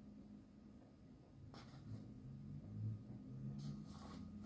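Faint steady low hum, with a few brief soft scratchy rustles: one about a second and a half in and a couple more near the end.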